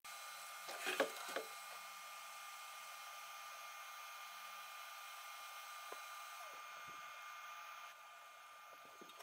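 Steady whir of a 3D printer's fans with a few faint whining tones, and a short cluster of clicks and knocks about a second in.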